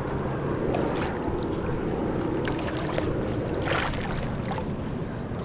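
Shallow seawater lapping and sloshing around a person wading, with a few brief faint clicks and splashes.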